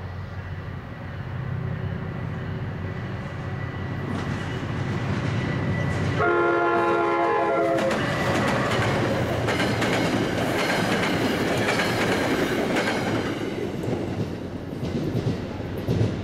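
New Jersey Transit diesel-hauled passenger train passing close by: its rumble builds, the locomotive's horn sounds one chord of about a second and a half around six seconds in, then the locomotive and multilevel coaches go by with loud wheel clatter that fades near the end.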